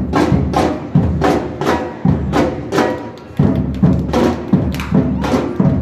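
Drum group playing a steady beat of sharp drum strikes, about three a second, easing briefly about halfway through before a hard stroke brings the rhythm back in.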